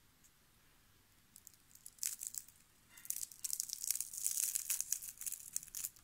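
Crispy fried potato crackling and crunching as fingers squeeze and break it apart. A few crackles come about two seconds in, then dense crackling for the last three seconds.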